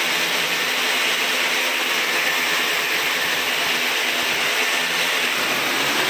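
Corded power drill running steadily as it bores overhead into the ceiling.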